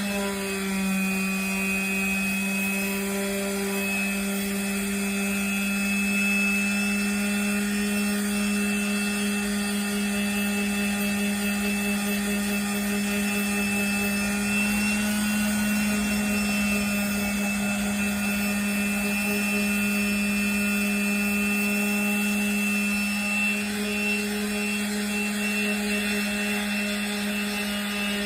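Electric power sander fitted with 80-grit sandpaper, running steadily with an even hum over a hiss of abrasion; the pitch sags briefly near the start.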